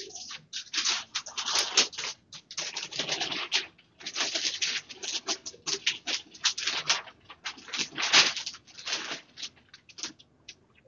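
Large sheets of flip-chart paper being lifted and turned over one after another, rustling in irregular bursts with short pauses between them.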